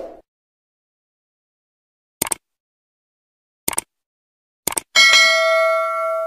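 Three short double mouse-click sound effects a second or so apart, then a bright bell ding that keeps ringing as it slowly fades. This is the click-and-notification-bell sound effect of an animated subscribe button.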